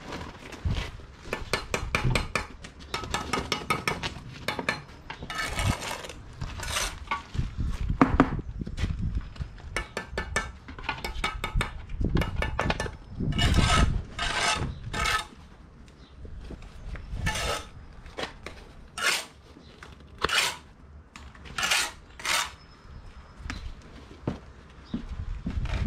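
Bricklayer's steel trowel scraping and clinking on mortar and bricks, in a run of short scrapes and rapid rattling taps.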